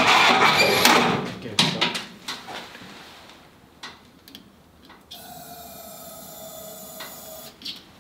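1946 Willys CJ2A's flathead four-cylinder engine turning over on a start attempt, dying away about a second in. After it come a few light clicks and knocks, then a steady high squeak for a couple of seconds.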